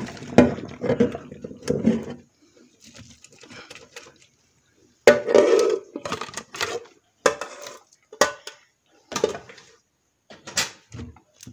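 A plastic colander of drained penne being handled in a stainless steel sink. A jumble of clattering comes first, then a string of separate knocks and clatters as the colander is shaken and bumped against the sink.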